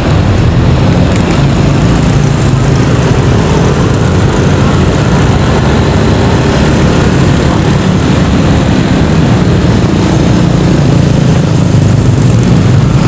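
A motor engine running steadily and loud, with a constant low hum and no change in speed.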